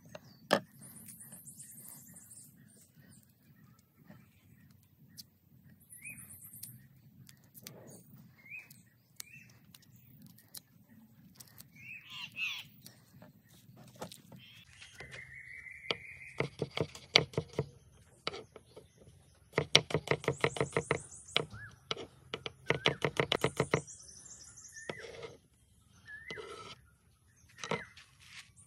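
Birds chirping in the background with scattered clicks and knocks. In the second half come runs of rapid, evenly repeated knife strokes on a cutting board as vegetables are chopped.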